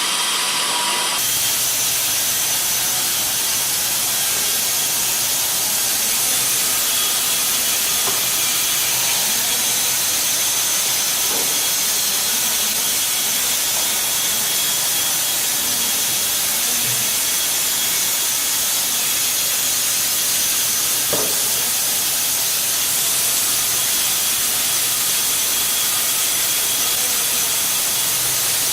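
Woodworking machinery running with a steady, loud hiss and a faint low hum underneath. The sound changes abruptly about a second in, then holds even.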